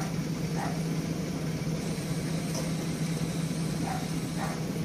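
Tracked excavator's diesel engine running steadily as a low, even drone, with a few faint short sounds over it.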